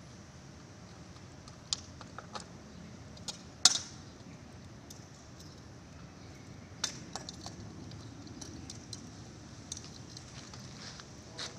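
Saw chain and guide bar clinking and rattling as they are handled and fitted onto a chainsaw, with scattered sharp metal clicks, the loudest about three and a half seconds in.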